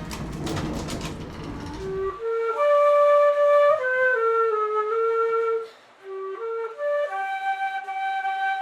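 Solo flute playing a slow melody of held notes. It comes in about two seconds in, after the fading tail of earlier music, and pauses briefly near the middle.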